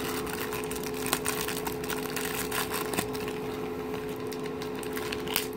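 A cereal-box toy's wrapper crinkling and crackling as hands work at it, with a string of sharp snaps, the packet resisting being opened. A steady low hum sounds underneath.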